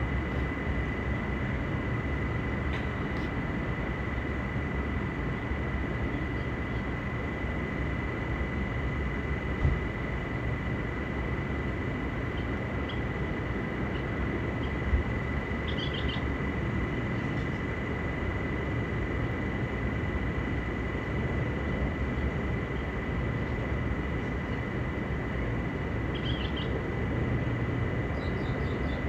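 Steady rushing background noise with a thin, steady high whine, and a couple of brief bird chirps, one about halfway through and one near the end.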